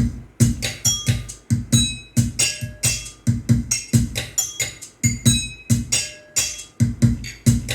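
A song with a busy drum beat, sharp hits about three or four times a second, played through a home 7.2-channel amplifier and loudspeakers during a sound test.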